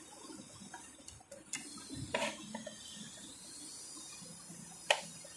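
Faint rustle of wires being handled, with a few sharp clicks as spade connectors are pushed onto the terminals of an RO water purifier's solenoid valve.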